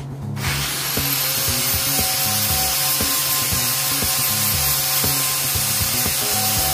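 Angle grinder spinning up about half a second in, then running steadily against steel: a harsh, even hiss with a thin high whine. A rhythmic bass line of background music runs underneath.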